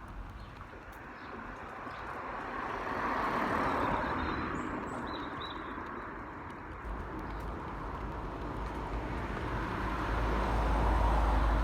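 Wind gusting through the trees, a leafy rush that swells, eases and swells again, with wind buffeting the microphone as a low rumble in the second half. A few faint bird chirps come through about five seconds in.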